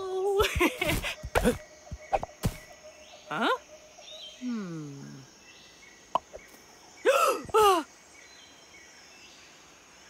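Cartoon sound effects over faint jungle ambience: a few sharp knocks and taps, a short rising glide, then a falling glide. About seven seconds in, a cartoon character makes two short wordless vocal sounds that bend in pitch.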